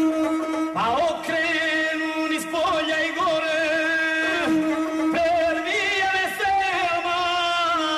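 Gusle, the one-string bowed fiddle, playing a wavering, ornamented melody over a steady held pitch, with a man's chanted epic singing.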